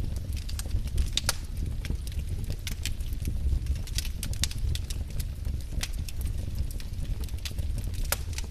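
Wood fire crackling: irregular sharp pops and snaps of burning logs, several a second, over a steady low rumble.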